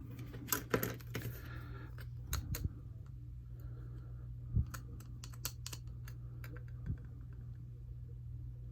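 Small hard-plastic toy jet parts clicking and tapping against each other as they are handled and sorted, in scattered irregular clicks over a steady low hum.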